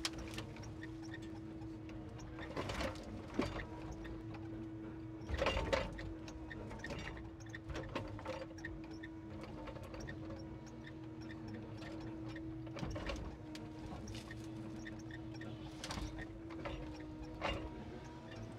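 Timber truck's hydraulic loader crane at work: a steady hum from the running engine and hydraulic pump, with scattered knocks and clunks from the crane and grapple among the logs, the loudest about five and a half seconds in.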